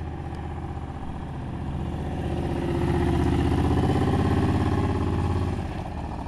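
Cruiser motorcycle engine running as it rides past towing a small trailer. It gets louder from about two seconds in and falls off sharply near the end as the bike moves away.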